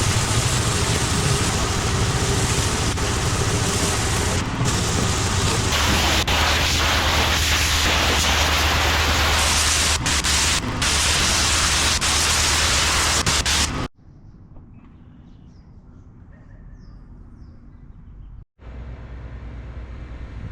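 Gas-engine pressure washer running with a steady hum under the loud hiss of high-pressure water spraying on concrete; it cuts off suddenly about 14 seconds in, leaving much quieter background noise, with another sudden break near the end.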